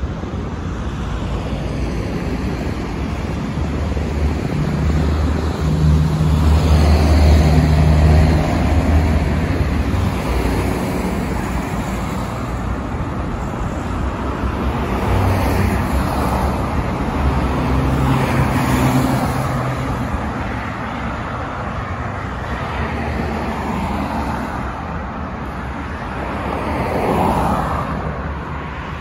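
Road traffic on the street beside the path: a steady hum of passing cars and engines, swelling with louder passes about a quarter of the way in, around the middle, and briefly near the end.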